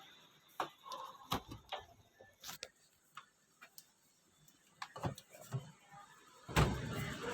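Scattered light clicks and knocks of kitchen dishes and utensils being handled and set down, with a louder knock near the end.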